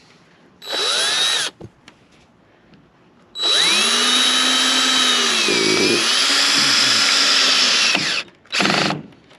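Power drill running in three pulls of the trigger: a short spin-up, then a run of about five seconds whose pitch sags briefly as the motor takes load, then a short burst near the end, as when driving screws to fix roof sheeting.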